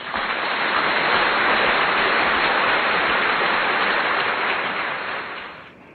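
A loud, steady rushing hiss like rain or running water. It starts suddenly and fades out about five seconds in.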